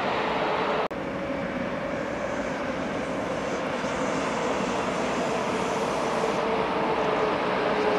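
Electric regional train with double-deck coaches rolling through the station: a steady running noise with a held hum. The sound drops out briefly about a second in.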